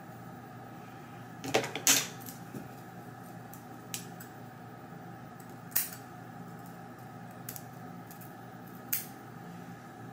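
Hairstyling tools being handled: a few scattered sharp clicks, the loudest pair about two seconds in, over a steady faint hum.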